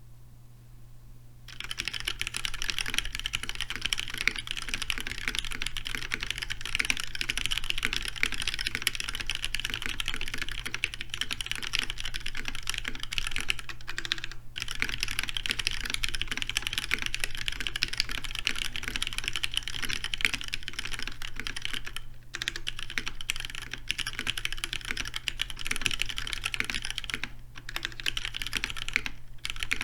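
Continuous fast typing on a custom mechanical keyboard with lubed Cherry MX Black linear switches on heavy 80 g springs, mounted in a brass plate and capped with GMK keycaps. The typing starts about a second and a half in and stops briefly a few times, near the middle and near the end.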